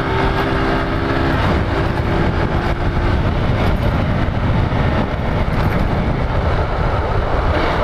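Small street motorcycle's engine running while riding, under heavy wind noise on the microphone. A steady engine note is heard until about three seconds in, with a short dip in pitch partway, and then gives way to mostly wind and road noise.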